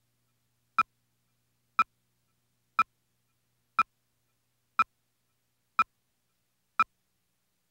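Countdown-leader beeps on a broadcast tape slate: a short, identical beep once a second, seven times, with silence between, counting down to the start of the picture.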